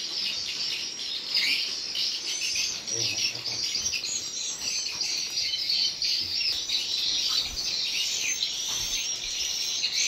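Swiftlet calls: dense, continuous high-pitched twittering and chirping, many overlapping short calls. This is the sound of a swiftlet house's roosting room, where lure calls are played to draw the birds in.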